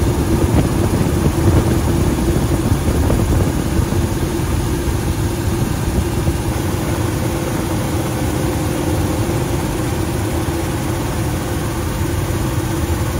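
Steady drone of a helicopter's engines and rotor heard from on board, with a steady hum running through it.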